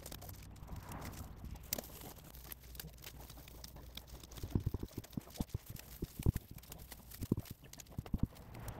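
Hands pulling grass and weeds out of a gravel border, loose pebbles clicking and knocking against each other and the pavers in irregular clusters, busiest in the second half.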